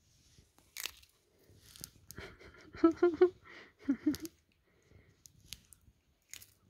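A cat biting and chewing on a Wiener sausage held to its mouth: scattered wet smacks and clicks, with a few short pitched grunting sounds in two clusters around three and four seconds in.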